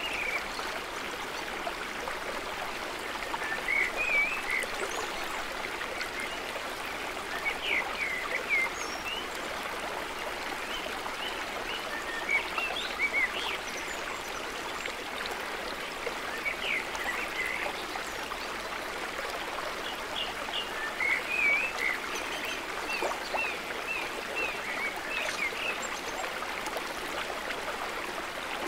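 Shallow woodland stream running steadily over rocks, with short high chirps scattered over the water sound, in clusters every few seconds.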